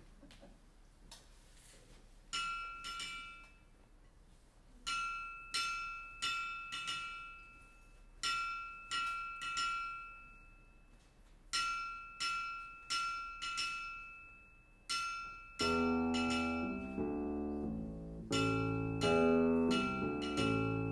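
An anvil struck in short runs of bright, ringing taps, playing the blacksmith's hammering rhythm of a few taps and then a double tap. About 15 seconds in, a keyboard bass line enters underneath.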